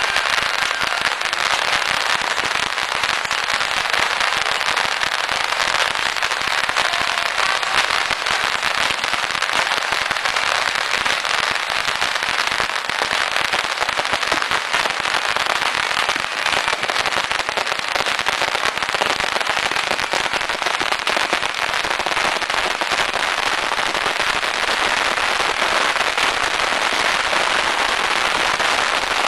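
A beehive rocket battery firing masses of small bottle rockets at once, making a dense, unbroken crackle of countless pops at an even level.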